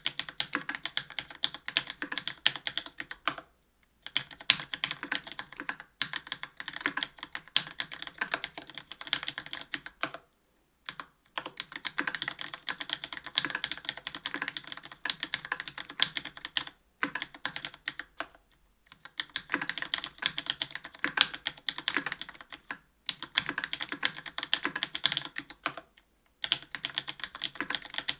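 Typing on a mechanical keyboard with linear Cherry MX Black switches, an aluminium plate and GMK keycaps: fast, dense keystroke clatter in runs of a few seconds broken by brief pauses.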